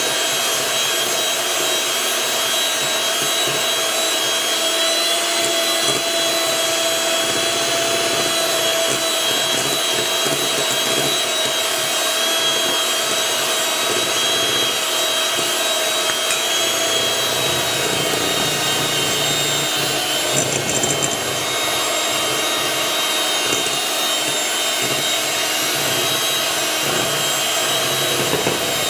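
Electric hand mixer running at low speed, its beaters whirring through cake batter in a glass bowl as flour is mixed in. A steady motor whir with a constant hum.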